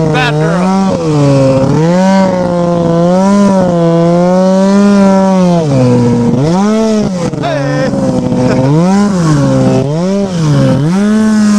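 Ski-Doo MX Z 700 snowmobile's two-stroke twin engine running hard under throttle, its pitch swinging up and down as the rider works the throttle through deep snow. There are several quick drops and recoveries in revs in the second half before it settles to a steady pitch near the end.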